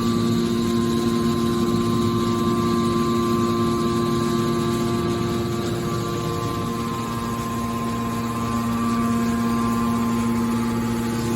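Hydraulic steel wire baler running, its motor and hydraulic pump giving a steady hum with a fixed whine. The hum eases slightly about two-thirds of the way in, then picks up again.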